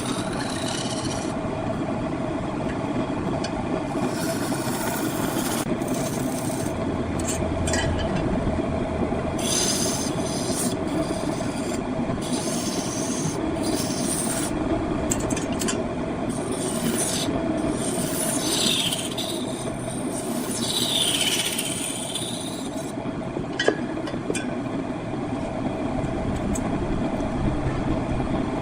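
Wood being cut on a running woodworking machine: a steady machine hum under continuous scraping and rasping of a tool against wood, with a couple of brief squeals about two-thirds of the way through.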